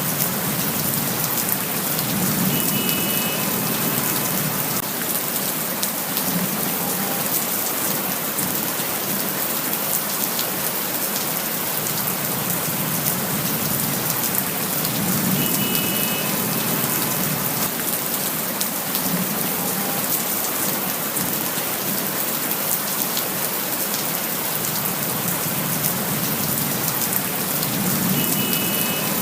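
Steady rain falling, a dense, even patter of drops hitting surfaces.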